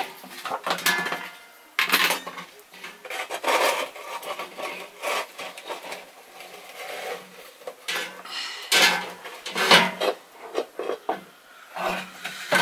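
Plastic bowl scraping and rubbing around the inside of an aluminium saucepan as stiff cooked cassava dough is scooped and pressed into a mound, in a run of irregular scrapes.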